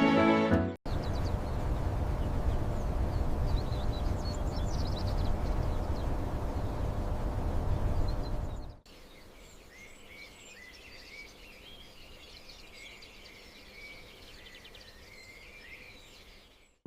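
A steady rushing noise, strongest in the low end, with a few faint bird chirps over it. After a sudden cut about nine seconds in, it gives way to birds chirping busily over a quiet hiss.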